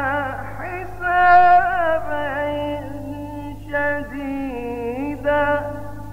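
A man's voice chanting Quran recitation in the melodic mujawwad style: long held notes that slide and waver in pitch, a new phrase starting about a second in and another near four seconds, then fading out near the end. A steady low hum runs underneath.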